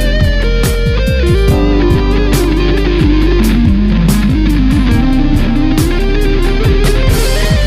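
Electric guitar played through a Line 6 Amplifi FX100 amp-modelling processor: a melodic lead line with pitch bends and slides over a full band backing with drums and bass.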